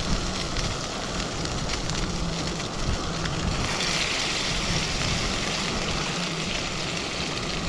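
Salmon fillets sizzling in hot olive oil in a frying pan on a camping stove, a steady crackling hiss that grows brighter about three and a half seconds in.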